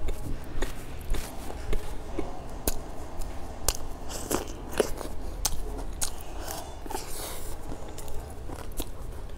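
Close-miked biting and chewing of a flaky chestnut pastry cake (banli bing), a string of sharp, crisp crunches of the crumbly crust at irregular intervals.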